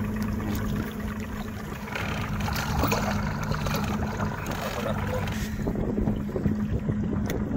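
Boat engine idling with a steady low hum, under water splashing and sloshing at the hull as a striped bass is lifted out by hand; the splashing stops about five and a half seconds in.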